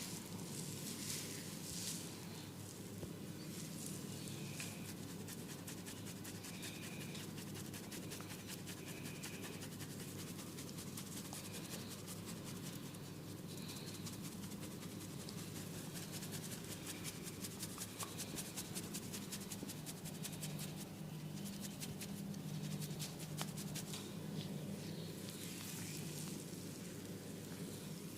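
Oiled hands rubbing and kneading a scalp and hair in a head massage: a steady run of close, rapid rubbing noises over a low steady hum.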